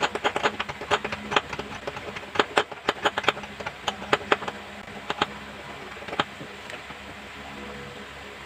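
Irregular sharp clicks and taps, crowded together for the first five seconds and then only a few. A faint steady hum lies under them.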